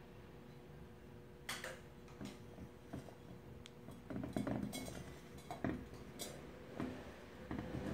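Painted porcelain jar being handled and turned on a wooden surface: scattered light knocks and scrapes of hand and glazed china, most of them from about four seconds in.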